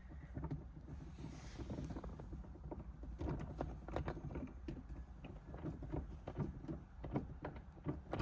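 Irregular small clicks and rubbing from a spoon shift knob being twisted by hand onto the shifter's threaded stick.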